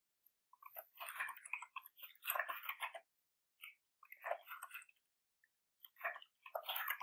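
Computer keyboard typing: three short runs of rapid keystrokes with pauses in between.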